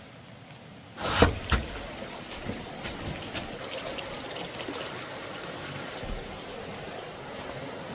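Water trickling and splashing, with a couple of loud knocks about a second in and lighter clicks and taps after.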